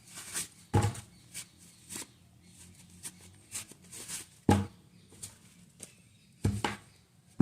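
Riding gloves and their packaging being handled: scattered rustles and light clicks, with three dull thumps, about a second in, midway and near the end.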